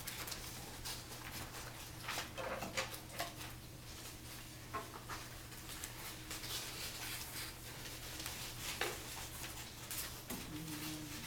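Classroom work noise: scattered paper rustling, small clicks and knocks from students cutting out and handling paper, over a steady low electrical hum. A short pitched squeak or faint voice comes near the end.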